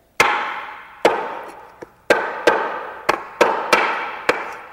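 Heavy bone cleaver chopping fish on a cutting board, about ten strikes. Each blow has a ringing tail. The first two come about a second apart, then the chops quicken to about three a second.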